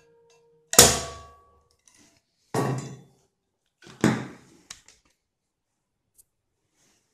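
Three loud clunks and knocks of air-compressor accessories and fittings being handled and set down on a wooden workbench, about one, two and a half, and four seconds in, followed by a couple of light clicks.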